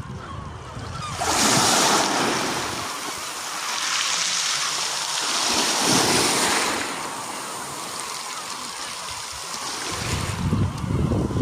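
Sea waves breaking and washing up the beach in two long surges, with wind buffeting the microphone near the end.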